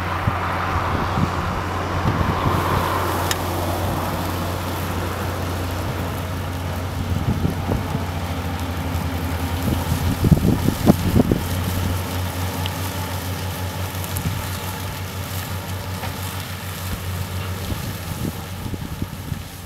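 Tractor engine running steadily under load while a manure spreader's vertical beaters spin, shredding and flinging fresh-cut grass out the back. A few louder knocks come about halfway through.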